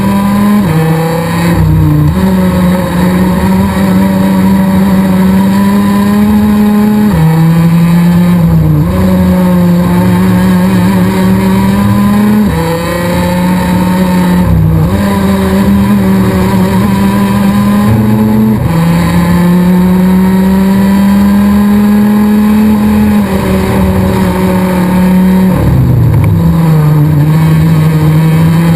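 Rotax DD2 kart's 125 cc two-stroke single-cylinder engine at racing speed, heard from on board. Its note climbs steadily and then drops sharply every few seconds, several times over.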